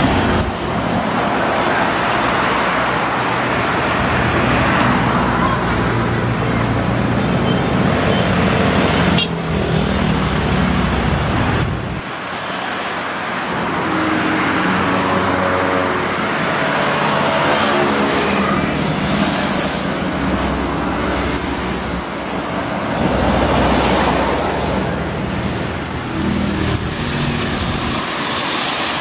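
Buses and other road traffic passing, engine running and tyre noise swelling and fading as each vehicle goes by.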